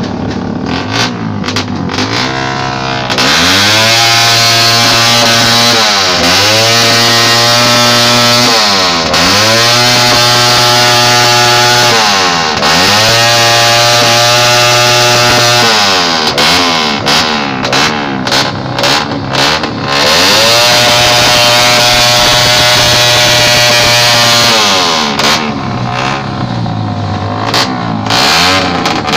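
Suzuki Raider motorcycle's single-cylinder four-stroke engine revved hard on the stand. It is held at high revs for several seconds at a time with short dips, and broken by bursts of rapid throttle blips at the start, in the middle and near the end.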